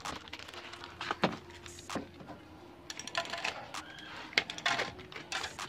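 Scissors snipping and a taped plastic courier pouch crinkling as it is cut open and handled, with a few sharp clicks early on and denser rustling in the second half.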